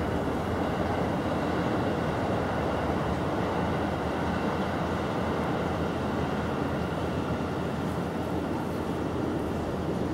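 Steady low outdoor rumble with no distinct events and no sound from the cats.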